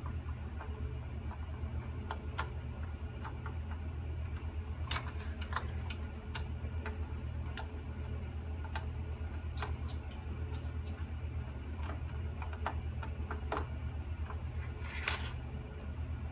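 Sparse, irregular clicks of a computer keyboard and mouse over a steady low hum.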